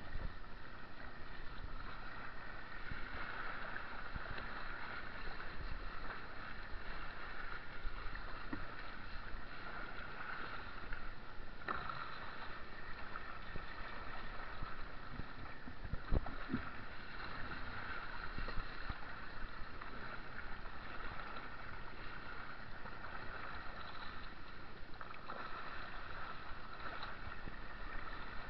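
Water splashing and rushing around a two-person slalom canoe as the paddlers stroke through whitewater, surging with each stroke. A couple of sharp knocks come about halfway through.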